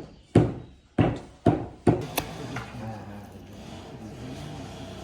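A run of chopping blows, about one every half second: four strong strikes and a lighter one in the first two seconds, then they stop, leaving a low steady background.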